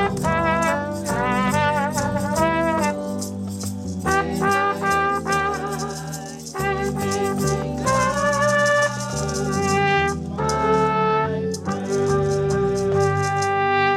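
Background music: the instrumental break of a gospel song, a lead melody line over a steady beat.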